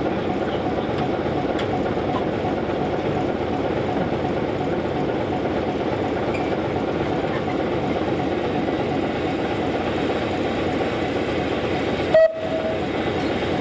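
Standing steam locomotive giving off a steady hiss of steam, with one short loud burst about twelve seconds in.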